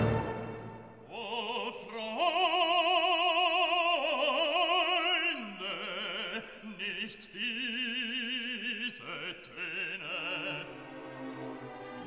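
Background classical music: an operatic voice sings long notes with a strong vibrato, louder in the first half and softer near the end.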